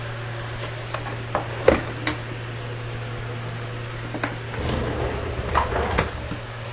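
Scattered knocks and clatter, with some scraping, as a sawdust box is handled and pulled off a radial arm saw. The sharpest knock comes about a second and a half in. A steady low hum runs underneath.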